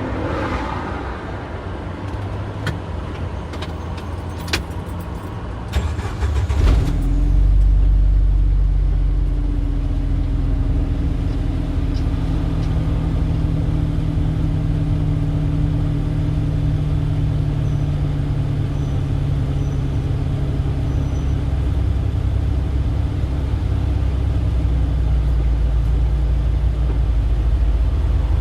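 Street traffic: a few sharp clicks and knocks in the first seconds, then about seven seconds in a motor vehicle's engine comes up close and runs steadily with a low, even hum.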